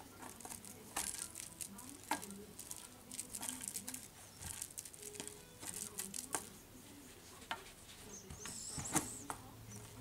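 Eurasier puppy mouthing, chewing and pawing a plush cat toy on a wire, with irregular rustling, small clicks and scrapes on the rug, and a brief high squeak near the end.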